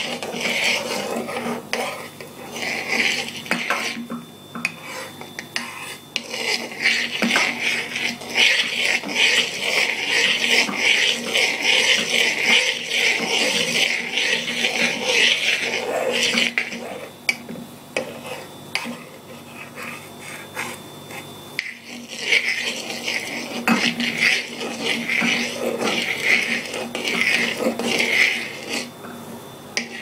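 A metal spoon stirs a foamy lye-and-oil soap mixture in a metal pot, scraping against the pot in rapid strokes. The stirring pauses twice, about four seconds in and again a little past halfway.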